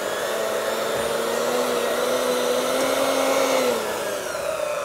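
Electric hand mixer running, its beaters working a thick, sticky dough in a glass bowl. Its motor hum sags in pitch about four seconds in.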